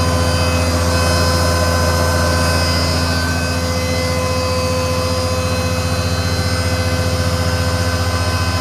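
XL-60C flour-milling machine (spice and grain pulverizer) running steadily, a loud even motor hum with a fine rapid pulse and a steady whine above it.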